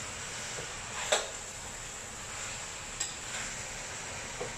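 Duck pieces sizzling in a hot wok as they are stir-fried, with the spatula knocking and scraping against the wok three times, loudest a little over a second in.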